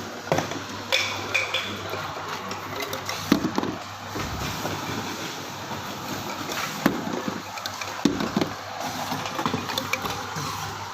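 Round-bottle labelling machine running, its motor and conveyor giving a steady hum, with occasional sharp knocks and clinks as bottles move through it.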